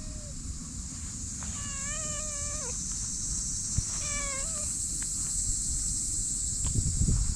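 Black cat meowing: a long, wavering meow that falls at its end about one and a half seconds in, and a shorter meow about four seconds in.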